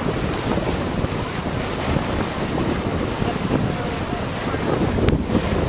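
Wind buffeting the microphone over the rush of water along a sailboat's hull as it moves under sail, a steady rumbling noise. A single sharp click about five seconds in.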